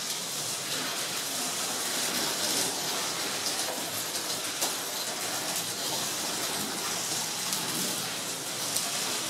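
Slot cars racing on a wooden track: a steady hiss and whir of small electric motors, gears and tyres running on the routed track, with a few faint ticks.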